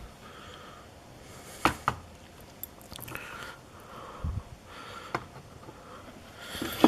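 Small metal lock parts being handled: light clicks and taps as pins and springs come out of the lock's core, with two sharp clicks close together near the two-second mark.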